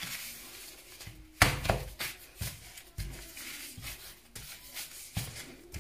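Gloved hands folding and pressing a sheet of layered pastry dough on a silicone pastry mat: a series of soft pats and rubs, with one sharp knock about a second and a half in.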